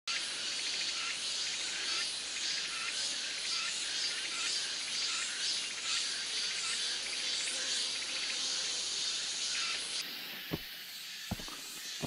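A dense insect chorus chirring steadily with a pulse about twice a second. About ten seconds in it gives way to a quieter outdoor hiss with two sharp clicks.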